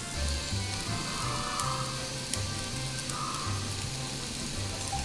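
Background music with a stepping bass line over a steady hiss from the Ooni Koda gas pizza oven as a pizza bakes.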